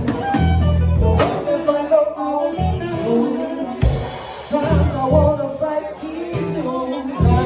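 A band playing a song, with a singing voice over guitar, heavy bass notes and drum hits.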